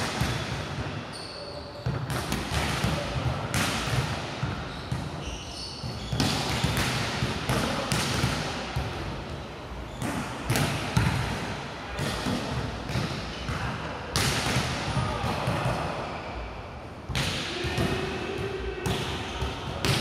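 Ball bouncing on a hard floor, repeated thuds throughout, with people's voices now and then.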